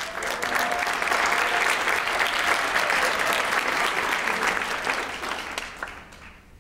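Audience applauding, many hands clapping together, dying away over the last second.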